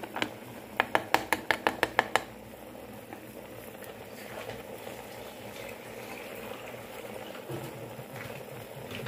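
A quick run of about nine sharp taps, a metal spoon knocking against the aluminium pressure cooker, followed by the steady sound of the stew cooking in the pot.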